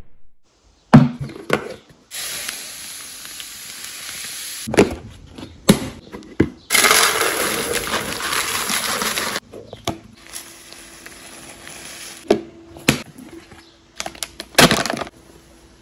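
Dry food poured from a plastic packet into a canister: steady rattling hiss, loudest about seven seconds in. Near the end a plastic coffee packet is crinkled and opened, with sharp crackles.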